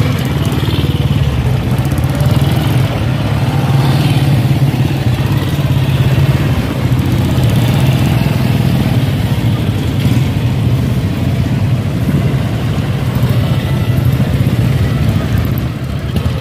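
Several vintage Meguro motorcycles running together at idle, a loud, steady engine drone.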